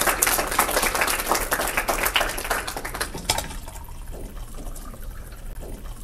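Audience applauding at the end of a reading; the clapping thins and dies down about three seconds in.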